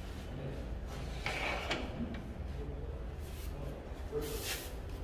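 Mosquito-mesh door and its frame being handled: two short scraping sounds, about a second in and again near the end, over a steady low hum.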